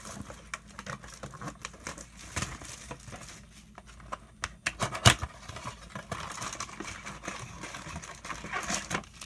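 Crinkling and rustling of plastic wrap and cardboard as a blaster box of trading cards is opened by hand: irregular crackles and clicks, with one sharp snap about five seconds in.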